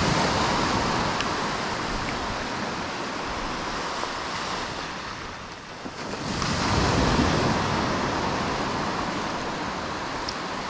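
Surf washing up a sandy beach: a wave rushes in at the start and fades, and a second one surges in about six seconds in and slowly fades.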